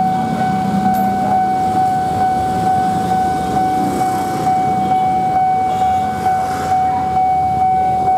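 Railway level-crossing alarm sounding one steady, unbroken high tone over street traffic and the low running of a minibus engine.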